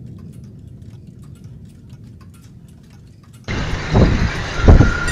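Strong gusty wind buffeting the microphone: a faint low rumble with light clicks, then about three and a half seconds in a sudden loud, surging low rumble as the gusts hit.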